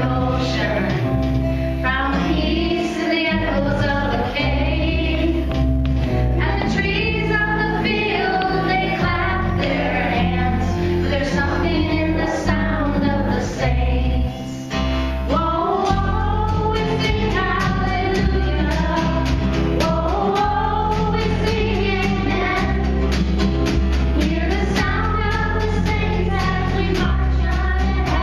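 Sung music: voices singing a melody over a band with a heavy bass line and a steady drum beat, with a short drop in level about halfway through.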